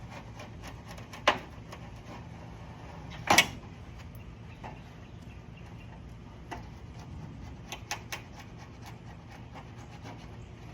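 Scattered clicks and knocks from working on a window screen frame during rescreening, with two louder knocks in the first few seconds and a run of small ticks later.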